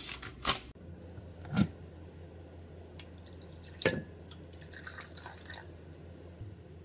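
A few drops of water falling from a kettle's spout into a glass measuring jug of water, with light glass clinks and one sharper clink about four seconds in.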